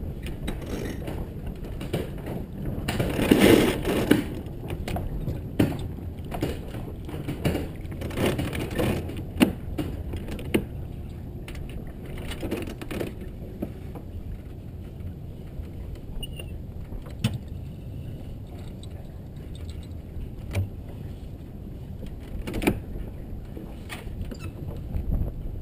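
Wind and water noise on a Merit 25 sailboat under way, with scattered knocks and clicks of lines and deck hardware as the sheets are hauled and worked. There is a louder rush about three seconds in.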